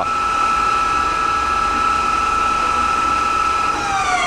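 Daewoo Pro-Turn 60/2500 CNC lathe spindle and its AC Fanuc spindle drive running in high gear at 1100 RPM, a steady, quiet whine. Near the end the whine starts falling in pitch as the spindle slows down.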